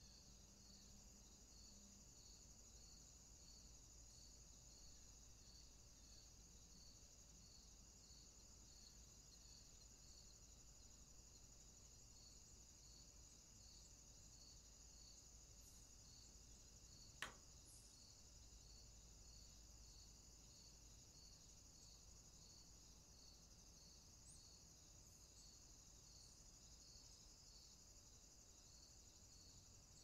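Faint insect chorus: a steady high-pitched trill with a regularly repeating chirp, a bit more than once a second. A single sharp click sounds a little past halfway.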